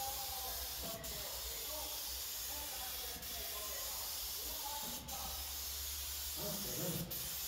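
Gravity-feed paint spray gun hissing steadily as it sprays clear coat onto a car body, with brief breaks about every two seconds.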